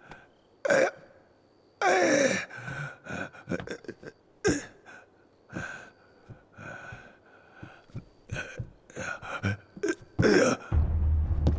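A man gasping and groaning, with short strained breaths and sighs. Music comes in near the end.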